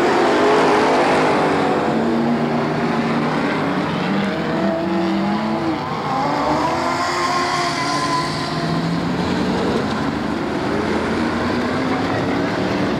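Several V8 stock car engines racing together at speed, their pitches gliding up and down as cars pass, loudest in the first second or so.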